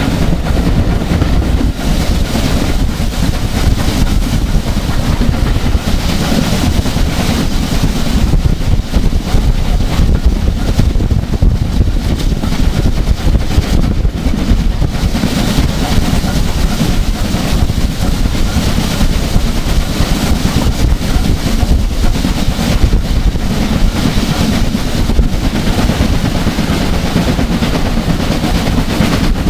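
Wind buffeting the microphone at an open carriage window, over the steady running of a train hauled by BR Standard Class 5 4-6-0 steam locomotive No. 73096.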